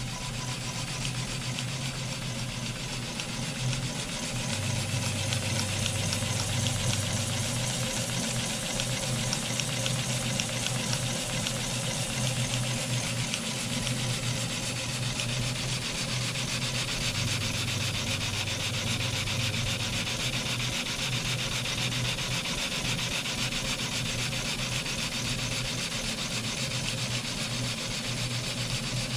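Vertical double-acting model steam engine running steadily under full steam with no throttle, a fast, even hiss and beat of steam exhaust, a little louder from about four seconds in. Its steam comes from a wallpaper stripper used as a boiler.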